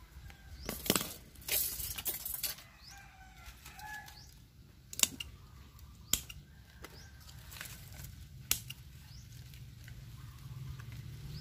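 Hand pruning shears snipping off small shoots of a young mai (yellow apricot) tree: a few sharp snips close together near the start, then single snips spaced a second or more apart, with leaves rustling between them.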